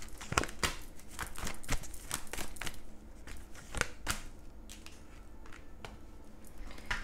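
Tarot cards being handled and drawn from the deck: a run of irregular crisp clicks and snaps, busiest in the first two or three seconds and thinning out after.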